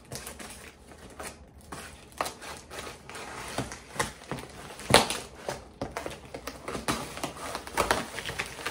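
Scissors cutting open a cardboard box along its packing tape, with irregular snips, crackles and rustling of the cardboard; the loudest snap comes about five seconds in.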